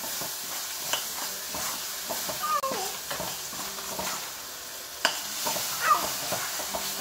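Wooden spatula stirring and scraping noodles in a nonstick frying pan, with a steady sizzle of frying under it. Two brief high-pitched vocal sounds come through, about two and a half seconds in and near the end.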